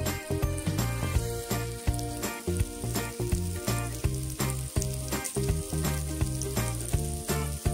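Thin slices of pork belly sizzling on a hot griddle plate, under background music with a steady beat.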